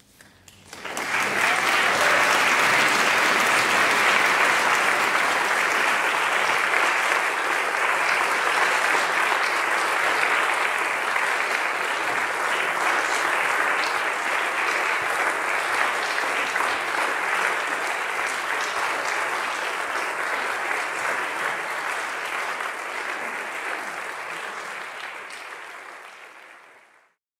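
A large audience applauding steadily, swelling up within about a second at the start and slowly fading out near the end.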